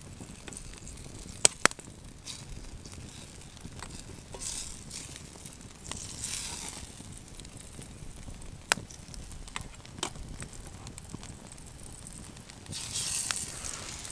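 Wood campfire crackling, with sharp pops (two loud ones about a second and a half in, more later) and a few brief bursts of sizzling from butter melting in a frying pan held over the flames.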